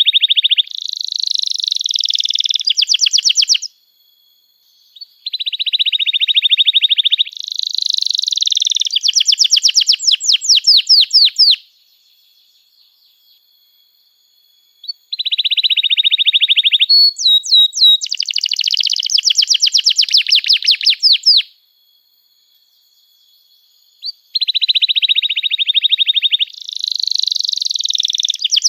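Domestic canary singing long song phrases, four in a row with short pauses between. Each phrase opens with a fast buzzy trill, jumps to a higher trill, then ends in a string of rapid, clear repeated notes.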